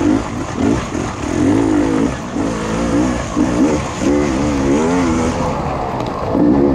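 Off-road dirt bike engine revving up and dropping back over and over as the throttle is worked on and off, with the pitch rising and falling every second or so.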